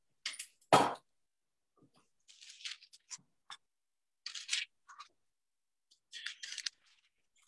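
Two short knocks in the first second, then intermittent scratchy rustling of Bible pages being turned while the passage is looked up.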